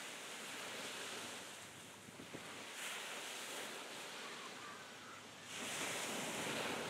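Surf washing on the shore and wind on the microphone, a steady rushing hiss that swells about three seconds in and again near the end.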